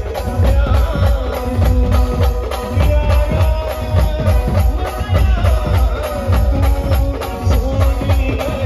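Maharashtrian brass band music played loud through a large truck-mounted speaker stack. A wavering lead melody holds over heavy bass and steady drum hits.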